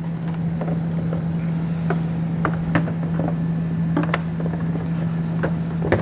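Scattered light plastic clicks and knocks as a 2021 Lincoln Nautilus taillight assembly is handled and pressed back into its pocket on the body, over a steady low hum.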